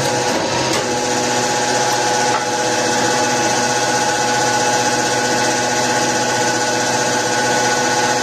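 Motor of a homemade press running steadily, with a constant whine over an even machine noise.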